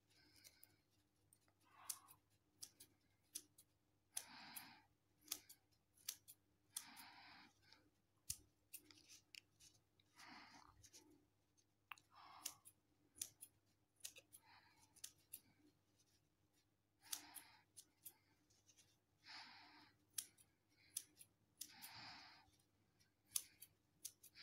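Small scissors snipping through a soft foam sponge, trimming it round. Faint, short cutting swishes come about every two seconds, each with sharp clicks of the blades.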